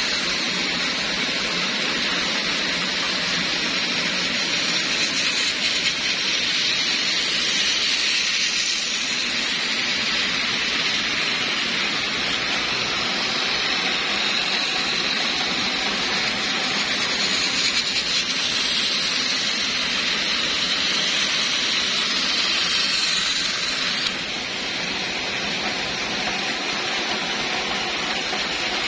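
Several battery-powered toy trains running on plastic track: a steady whir of small electric motors and gears with a high motor whine and the rattle of wheels on the track. The sound drops slightly in level a little after the two-thirds mark.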